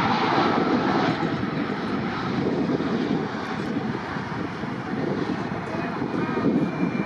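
Bombardier CRJ-900 regional jet's two rear-mounted General Electric CF34 turbofans during the landing rollout: a broad, steady jet rumble, loudest at the start, easing off around the middle and swelling again near the end.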